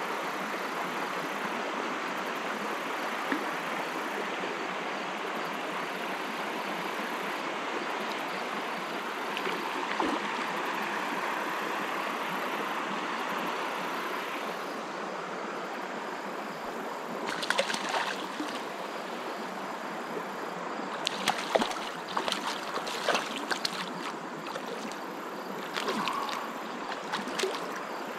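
Clear creek water running steadily over a shallow, weedy riffle. In the last third, a scattering of sharp, brief clicks and knocks rises above the water.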